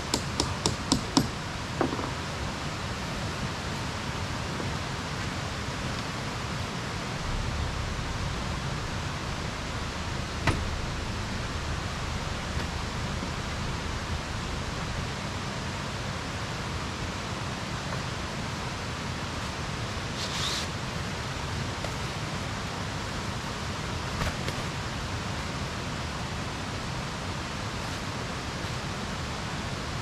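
A steady rushing noise, with a quick run of clicks at the start and a single sharp knock about ten seconds in.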